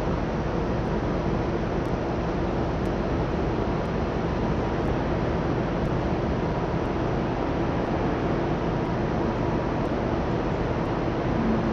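Steady, even rumble of distant city traffic at night, with a faint low hum running underneath.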